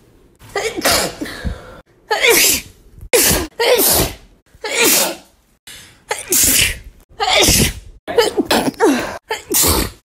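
A woman sneezing over and over, about nine sharp sneezes in quick succession, roughly one a second.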